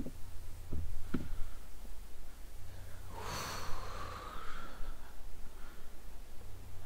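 A person breathing out hard through the nose in one snort-like rush a few seconds in, with two faint clicks about a second in.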